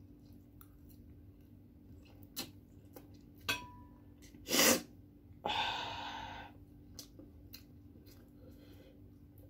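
A woman sneezes once, a short loud burst about four and a half seconds in, followed by a breathy rush of air of about a second that fades out. The sneeze comes on while eating super spicy instant noodles.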